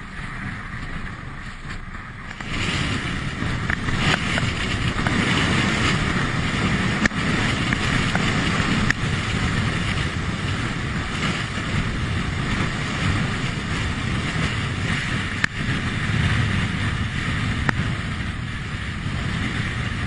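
Heavy storm surf breaking against rocks, with strong wind buffeting the microphone: a steady rushing noise that gets louder about two and a half seconds in, with a few sharp knocks.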